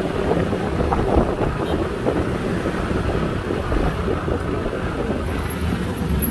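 Motor scooter riding along, its engine running under wind noise on the microphone.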